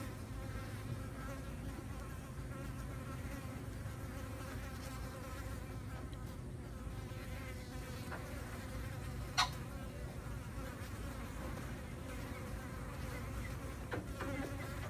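Insects buzzing steadily around a dead rat, with a single sharp click a little past halfway.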